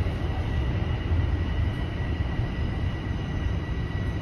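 A Toronto Rocket subway train running as it comes into the station, heard from inside the car: a steady low rumble with a faint, steady high whine that fades near the end.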